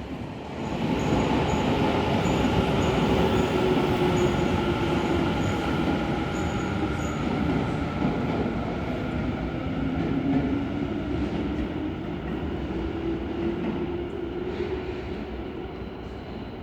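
JR East E657-series electric limited-express train rolling through a station at a crawl, a dense rumble with a steady hum whose pitch sags and then rises slowly; loudest in the first ten seconds, then fading as it moves off. It is running at very low speed because an abnormal noise is being checked.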